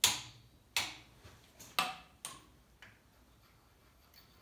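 Sharp metallic clicks from a torque wrench and socket being worked on cylinder head nuts. There are four clicks in the first two and a half seconds, spaced unevenly, the first the loudest, then a fainter one.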